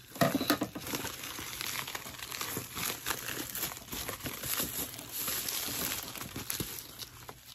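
Plastic padded mailer envelope crinkling and rustling as a hand reaches inside and works the box loose, with many small crackles.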